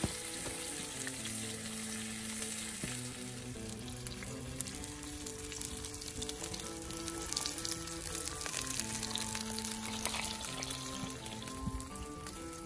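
A steak searing on a hot rhyolite stone slab greased with shortening: a steady sizzle with many small spitting pops. Soft background music with held notes plays underneath.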